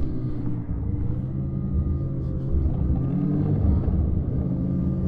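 Snowmobile engine running under throttle in deep snow, its pitch rising and dipping a little as the rider works the throttle.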